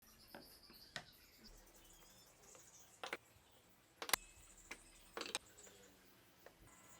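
Scattered light clicks and knocks at uneven intervals, the loudest a little after four seconds, over a faint high chirping hiss.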